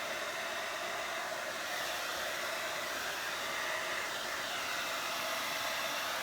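Handheld hair dryer running steadily on its low setting, a continuous rush of blown air with a faint hum.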